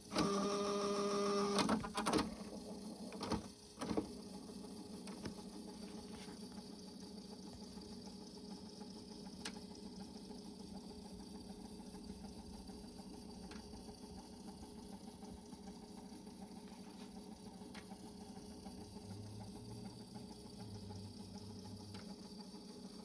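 Cassette deck's tape transport working: a loud motor whir for the first second and a half, mechanical clunks of the transport about 2 and 4 seconds in, then the motor running on with a steady low hum and a few faint ticks.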